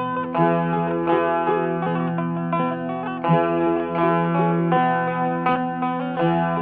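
Background music: a plucked string instrument playing short notes over a held low note.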